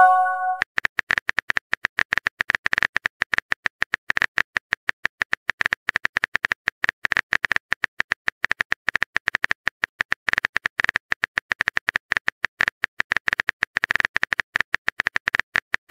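Phone-keyboard typing sound effect: a rapid, irregular run of small clicks as the next chat message is typed. It begins with a short chime as the previous message bubble pops up.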